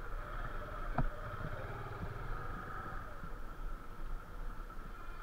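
Motorcycle engine running while the bike is ridden slowly, with a steady low rumble and one sharp click about a second in.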